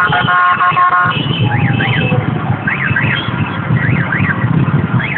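Busy street traffic: several vehicle horns honk together for about the first second over a steady low rumble of engines. Quick rising-then-falling electronic chirps, in pairs, recur about once a second.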